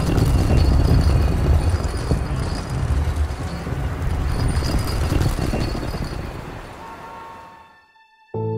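A loud, low rumbling noise that fades out over the last couple of seconds. Soft piano music begins just before the end.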